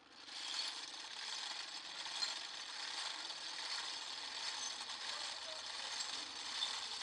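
Iron rope-twisting wheel running steadily, its gears and hook spindles turning as they twist fibre yarn into rope.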